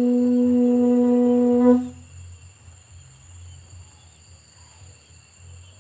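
A long, steady note blown on a horn, swelling briefly before it cuts off about two seconds in. Afterwards crickets chirr steadily.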